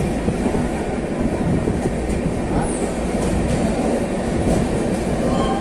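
Kerala Express passenger train moving along a station platform, heard from aboard a coach: a steady rumble of wheels on the rails with faint clicks.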